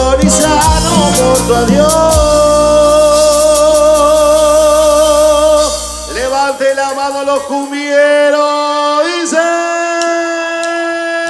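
A live band plays with a male singer over keyboard, electric guitars, bass and percussion. About six seconds in, the bass and drums drop out, and long held sung and keyboard notes carry on alone.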